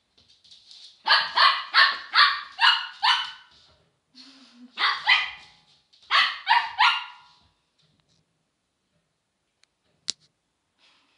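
English cocker spaniel puppy barking at a plastic Coca-Cola bottle in high yaps: a quick run of six barks, then two, then three, followed by a single sharp click near the end.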